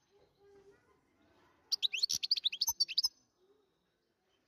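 European goldfinch singing: one rapid burst of high, twittering notes with quick pitch glides and sharp clicks, lasting about a second and a half from just before the middle.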